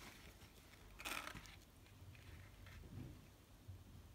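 Near silence: faint handling of a small plastic toy, with one brief soft rustle about a second in.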